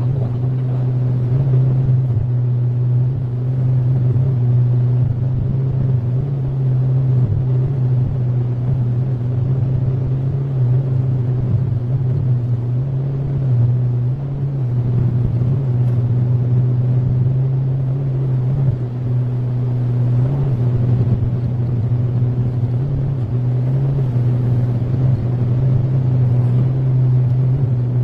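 SANY excavator's diesel engine running steadily throughout, with small rises and falls in level as it works.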